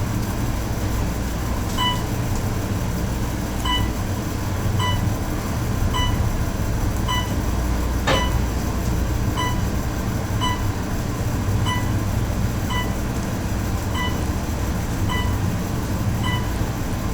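Elevator cab in travel: a steady low rumble of the moving car with a fan running. A short electronic beep repeats about once a second, and a single sharp click comes about halfway through.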